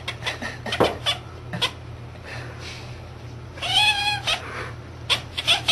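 A cat meowing: short sharp sounds in the first two seconds, then one drawn-out, wavering meow about two-thirds of the way through, then more short sounds near the end.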